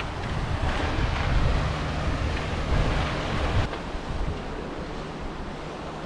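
Wind buffeting the microphone in uneven low gusts, over a steady rushing hiss.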